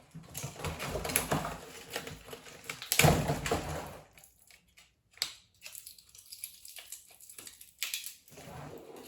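Plastic and cardboard toy packaging rustling and crinkling while small doll accessories are pulled out of it, loudest about three seconds in, then lighter clicks and taps of the small plastic pieces being handled.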